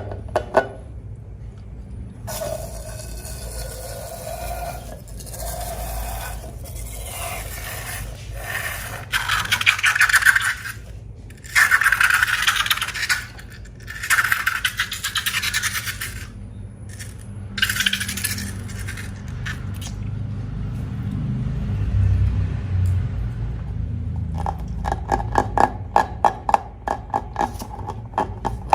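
Handling noises from slime making: bouts of harsh scraping and rustling, then near the end a run of quick, regular clicks.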